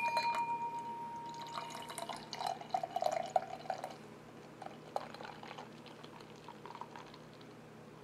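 Beer pouring from a glass bottle into a glass: a clink that leaves the glass ringing for about two seconds, then glugging and splashing as the beer goes in, fading after about four seconds to a faint crackle of the foam head.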